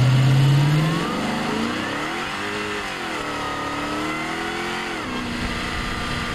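Supercharged 5.0-litre V8 of a 2011 FPV Falcon GS accelerating hard. Its note climbs in pitch through about the first second and is loudest there, then it fades as the revs rise and fall again until about five seconds in.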